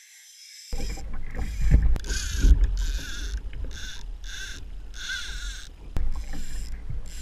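A kayak moving through open water: water rushing and sloshing against the hull in even swishes about every half second or so, over a low rumble of wind buffeting the microphone.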